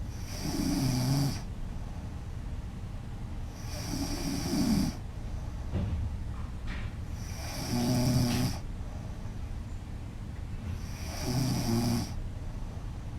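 A woman snoring loudly in her sleep: four snores, each about a second long and about three and a half seconds apart, with quiet breathing in between.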